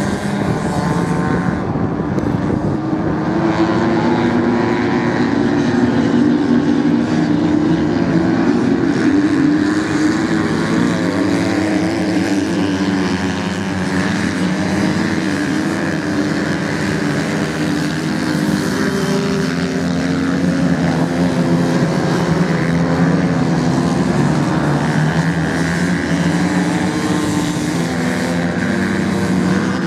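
Several off-road motorcycles racing on beach sand, their engines overlapping, with the pitch rising and falling as riders open and close the throttle through the turns.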